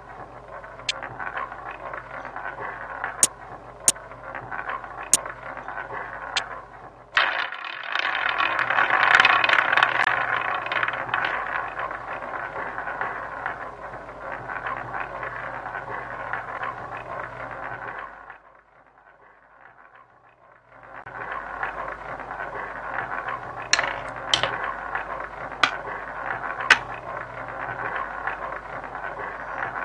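Online roulette game sound effects: a few sharp clicks as chips are placed on the table, then about seven seconds in, the rattling whir of the wheel spinning with the ball rolling. The rattle drops out briefly past the middle, then returns with a few sharp clicks.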